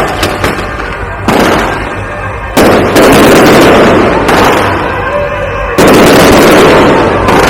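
High-altitude aerial firework shells bursting overhead: about four loud booms a second or more apart, each followed by a long rolling rumble and crackle as it fades.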